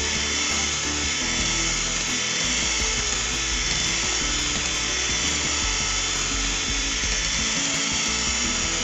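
Electric hand mixer running steadily at speed, its beaters whisking eggs and sugar in a plastic bowl. The eggs are almost fully beaten into a thick, pale foam.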